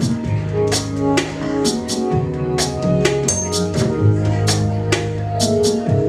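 Live Latin-dub band playing an instrumental passage: drum hits on a steady beat about twice a second over a strong bass guitar line, with electric guitar and keyboard.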